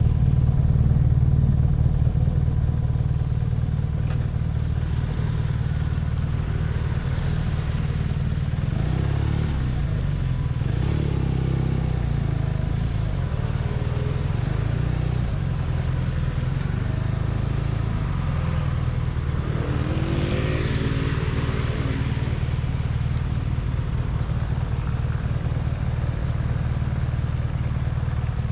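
BMW R nineT's boxer twin engine running steadily under way, with a deep, constant engine note. Brief rising-and-falling sweeps in pitch come about ten and twenty seconds in.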